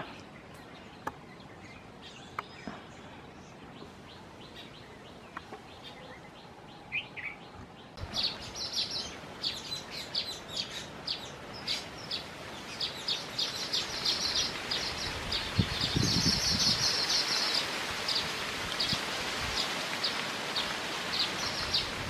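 Baya weavers calling: a quiet start with a single short chirp, then, about a third of the way in, a fast, continuous chatter of short high chirps begins. About two-thirds through, a longer wheezy, buzzing note rises above the chatter, with a low rumble underneath.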